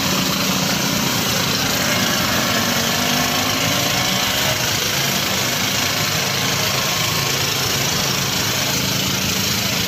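Engine of a road-washing water tanker running steadily at an even pitch, with a steady hiss over it.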